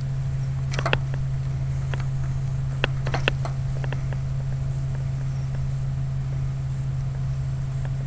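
A few light clicks and taps as spade connectors are pulled off the metal terminals of an air conditioner's run capacitor, mostly in the first half and a couple close together near the middle. A steady low hum underlies them.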